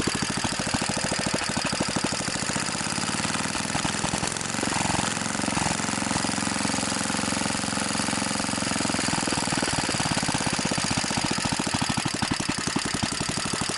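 BSA 220cc governed single-cylinder engine running steadily at speed without a muffler, a rapid, even beat of firing strokes. The note shifts briefly about five seconds in, then settles again.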